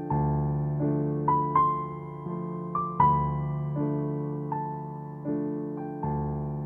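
Background solo piano music: soft notes and chords struck about every three-quarters of a second, each left to ring and fade.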